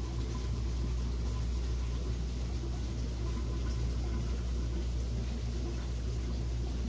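Steady low hum of fish-room equipment running, even and unchanging throughout.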